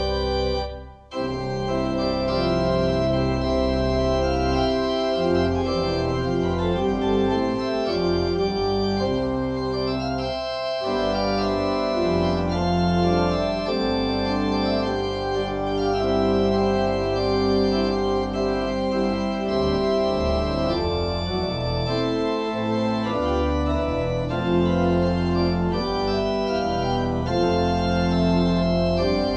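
Church organ playing a postlude of slow, sustained chords, with a brief pause about a second in.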